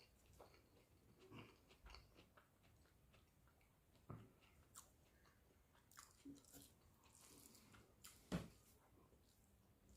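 Quiet close-up eating sounds: a person chewing a mouthful of rice and egg curry, with wet mouth clicks and smacks and a sharper bite about four seconds and about eight seconds in.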